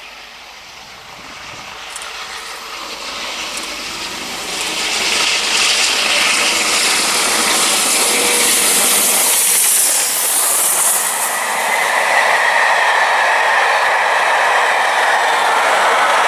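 A steam-hauled passenger train approaches at speed and passes close by. The sound grows over the first five seconds into a loud, steady rush of hiss and wheels on rails as the locomotive and coaches go past.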